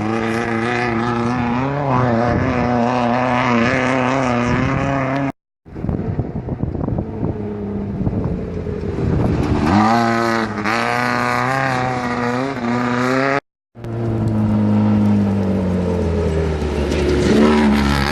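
Off-road race vehicle engines running hard on a dirt course, the pitch rising and falling with the throttle. The sound cuts out abruptly twice, about five and a half and thirteen and a half seconds in.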